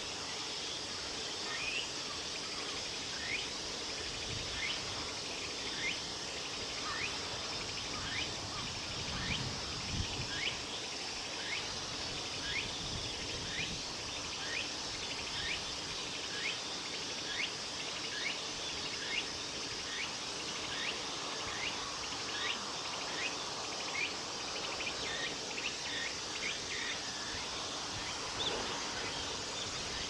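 Steady high hiss of a late-summer insect chorus, with a short rising chirp repeated a little faster than once a second over it. A faint low rumble rises and falls about a third of the way in.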